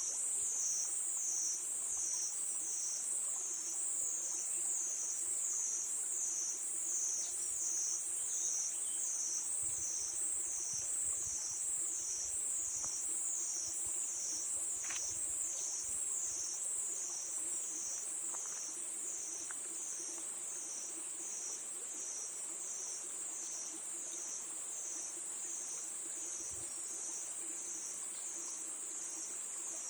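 Crickets chirring in a continuous high-pitched trill that swells and fades in a steady rhythm, a little over once a second.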